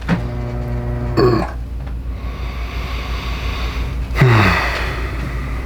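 A man's voice without words: a low steady hum held for about a second, then a breathy groan falling in pitch about four seconds in, a reaction of relief just after a chiropractic adjustment.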